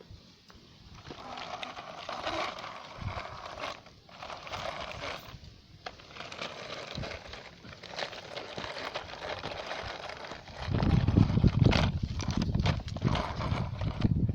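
RC mini excavator working in soil: an irregular clatter of small clicks, scrapes and crunches, turning louder and heavier with a low rumbling crunch about ten seconds in.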